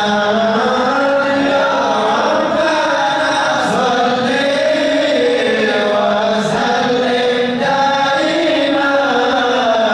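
Men chanting an Arabic devotional qasidah unaccompanied into a microphone, a slow melody of long held notes that bend up and down without a break.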